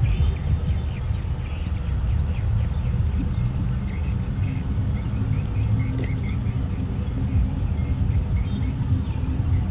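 Outdoor ambience: a steady low rumble, with many short, faint chirps of small birds over it.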